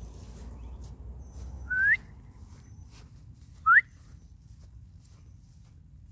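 Two short rising whistles, about two seconds apart, from a person whistling to call a dog.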